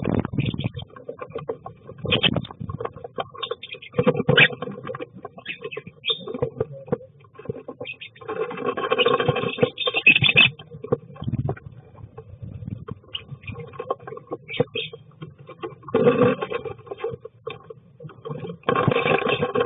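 Lovebirds scrabbling about inside a wooden nest box: claws scratching and scraping on the wood and straw, with wing flaps. It comes as scattered clicks and scratches, with louder, busier bursts at about 8 to 10 seconds in, again around 16 seconds, and near the end.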